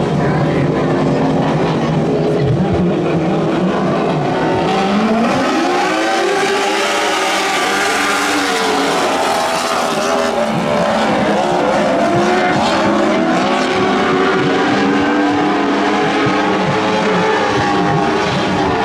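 A pack of Lightning Sprint race cars running in a heat race. Several high-revving motorcycle-type engines overlap, their pitches rising and falling as the cars accelerate down the straights and lift for the turns.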